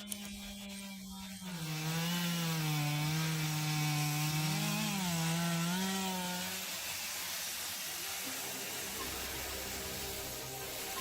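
A wood-processing machine running and sawing into timber. Its engine note dips and rises under load for the first six seconds or so, then gives way to a steady rasping sawing sound.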